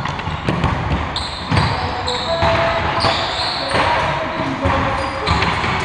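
Basketball game play on a gym floor: the ball bouncing with several low thumps, among short high squeaks.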